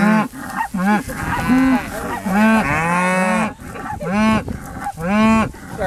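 Several Hereford-type beef cows mooing in quick succession, about seven short calls from more than one animal, some overlapping, with one longer moo near the middle.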